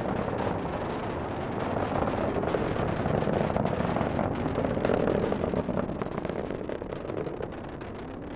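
Falcon 9 rocket's first stage, nine Merlin engines, running in climb: a continuous crackling rumble that eases off slightly near the end.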